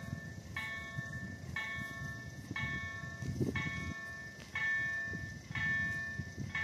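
Level-crossing warning bell striking about once a second, each stroke a bright ring, sounding while the barriers are down. A low rumbling noise runs underneath.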